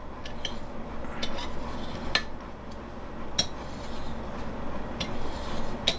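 Brass parts of an Optimus Svea 123R stove clinking as it is taken apart by hand: a few scattered, light metallic clicks while the top parts around the tulip are worked loose.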